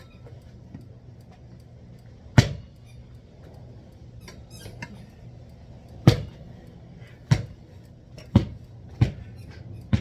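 Hard parts knocking and clacking together while a patio rod and hammock set is being assembled. There are five sharp knocks, spaced out at first and coming closer together near the end.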